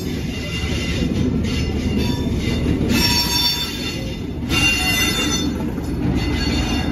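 Passenger coaches rolling past close by: a steady rumble of wheels on rail, with high-pitched wheel squeal coming and going, strongest from about halfway through. Near the end the Class 47 diesel locomotive pushing at the rear draws level.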